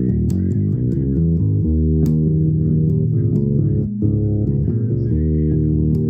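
Bass guitar being noodled on, an improvised run of plucked low notes, some short and some held.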